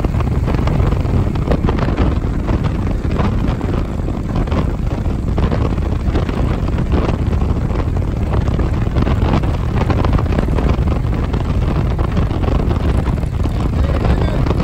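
A vehicle on the move: a steady low engine and road rumble under heavy wind buffeting on the microphone.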